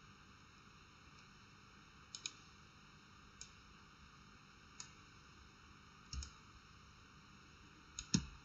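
Computer mouse and keyboard clicking: a handful of sharp clicks at irregular intervals, some in quick pairs, the loudest pair near the end, over a faint steady hiss.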